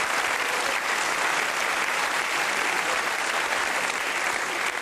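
A live audience applauding: steady, dense clapping from many hands.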